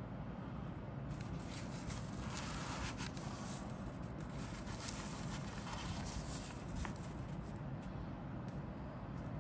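A printed paper instruction sheet rustling and crinkling as it is held and shifted between two hands. A steady low hum lies underneath.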